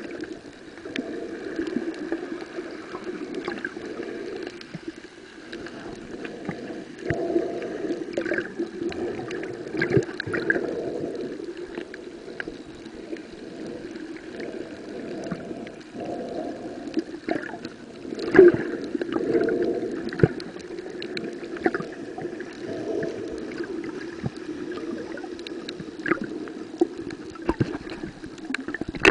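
Muffled underwater sound picked up by a camera held under the sea while snorkeling over a reef: a steady dull rushing of water with many scattered sharp clicks, the loudest about eighteen seconds in.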